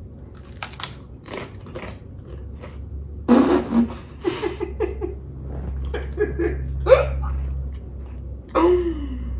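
Crisp seaweed rice crackers crunching between the teeth in the first two seconds. Then a loud spluttering burst about three seconds in, followed by groans and laughing as the taste hits.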